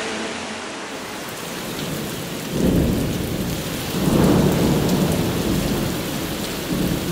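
Steady rain hissing, with rolls of thunder rumbling in about two and a half seconds in and more loudly about four seconds in: a rain-and-thunder effect in the break of a Hindi song about rain.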